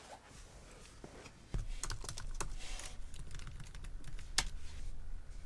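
A few light, scattered clicks and taps, over a low rumble that comes in suddenly about one and a half seconds in.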